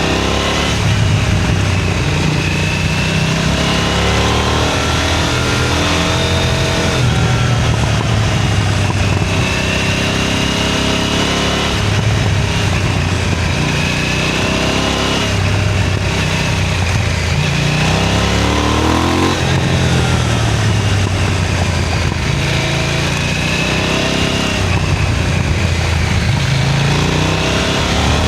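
KTM 990 Duke's parallel-twin engine, recorded on board, revving hard through the gears: the pitch climbs, drops at each shift or when the throttle is closed, and climbs again, with wind noise throughout.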